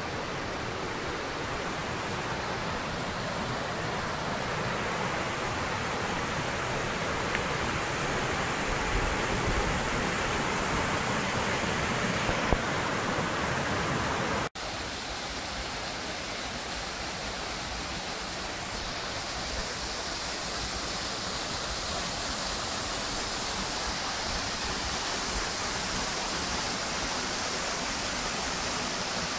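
Steady rush of river water pouring over granite cascades and small waterfalls. About halfway through, the sound cuts out for an instant and resumes as another stretch of falling water.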